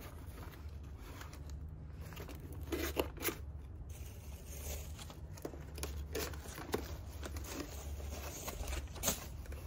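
Old cardboard boxes and paper packing being handled and opened with gloved hands: rustling and crinkling, with a few sharp knocks about three seconds in and again near the end, over a steady low hum.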